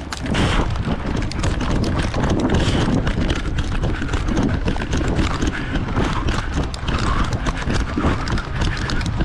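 Running footsteps of a person sprinting over the ground, a fast, steady run of thuds with kit jostling.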